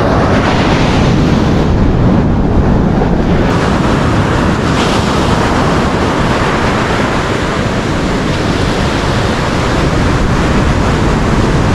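Ocean surf breaking and washing up a sandy beach in a steady, continuous rush, with wind buffeting the microphone.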